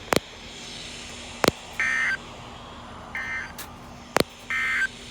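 Three identical short buzzy data bursts, about a second and a half apart: the SAME end-of-message code sent by a NOAA Weather Radio broadcast to close the weekly alert test. Several sharp clicks fall between the bursts.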